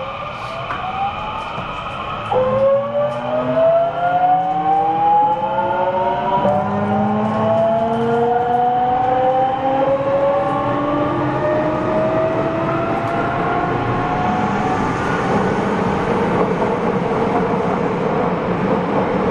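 JR West 207 series 1000-subseries electric train accelerating, heard from inside its motor car: the inverter and traction motors give several rising whines together, stepping up in pitch about two seconds in and again around six seconds. By about fifteen seconds the whine has faded into steady running noise.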